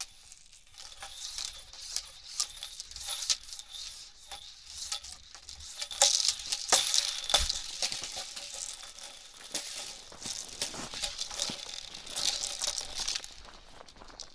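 Hula hoop spinning around a body: a continuous light rattling and clicking that swells and eases, loudest about six seconds in.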